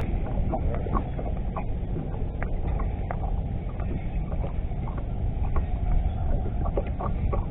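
Steady, uneven low rumble of wind and water noise on a boat-mounted action camera, with scattered faint clicks and taps.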